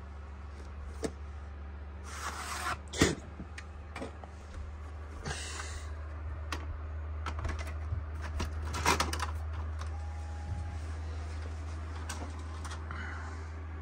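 A VHS cassette and its plastic case being handled and loaded into a VCR: a run of plastic clicks, knocks and rustles, the sharpest knock about three seconds in, over a steady low hum.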